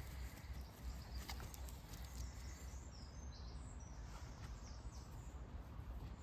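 Faint outdoor ambience: a steady low rumble with a few faint scattered ticks, and some brief faint high chirps about halfway through.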